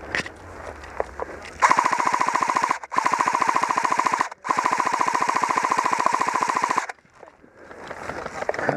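Airsoft gun firing on full auto in three long bursts, a fast even rattle with a motor whine, the last burst the longest; scattered faint clicks come before and after.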